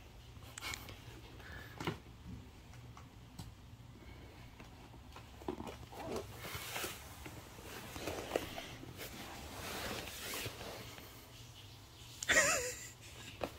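Soft pats, taps and plastic rustles as a baby handles and crawls at an inflatable water play mat, with a short baby vocalization near the end, the loudest sound.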